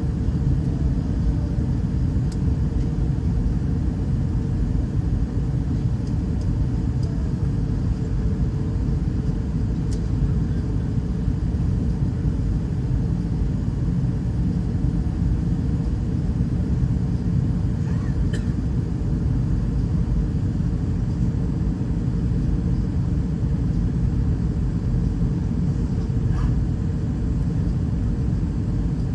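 Steady cabin noise of an Airbus A320-211 on approach: the low rumble of airflow and CFM56 engines, even and unchanging, with a few faint clicks.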